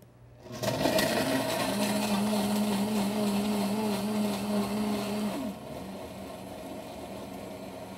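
Vitamix The Quiet One blender, inside its enclosure, starting about half a second in and blending ice and fruit at high speed with a steady hum. About five and a half seconds in it drops to a lower, quieter speed as its preset program changes pace.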